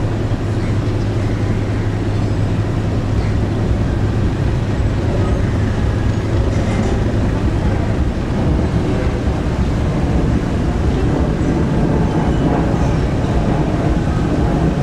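Passenger ferry's engines running as the boat moves slowly past, a steady low hum over a broad rush of machinery and water noise; the hum eases about eight seconds in.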